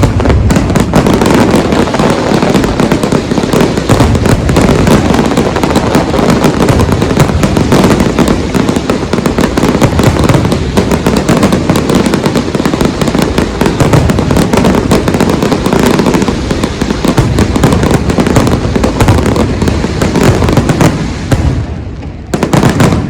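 Fireworks display: a loud, dense barrage of many bursts in quick succession with no let-up, fading away about a second before the end.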